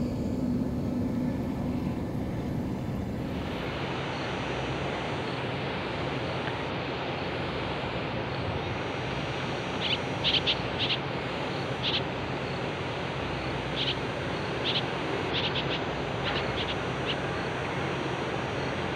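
Outdoor ambience: a low machine hum gives way, about three and a half seconds in, to a steady rushing noise. Clusters of short, high bird chirps come in the second half.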